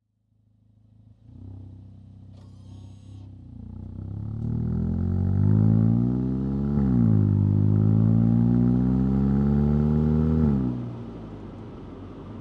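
2025 VW Golf GTI 8.5's turbocharged 2.0-litre four-cylinder accelerating hard: the engine note climbs, drops sharply on an upshift about seven seconds in, and climbs again. About ten and a half seconds in the throttle closes and the engine note falls away to steady road noise.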